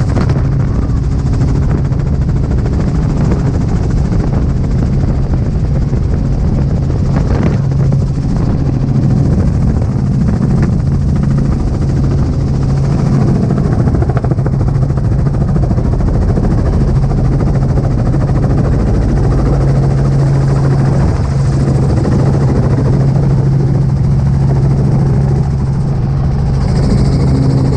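Robinson R44 helicopter's rotor and piston engine heard from inside the open-door cabin: a loud, steady drone with a fast low rotor beat and wind rushing in, through the final approach and touchdown on grass.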